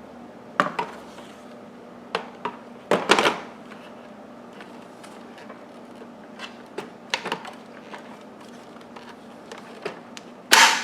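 Hard plastic parts of a Hoover bagless upright vacuum being handled during assembly, clicking and knocking irregularly. There is a louder clatter about three seconds in and another near the end.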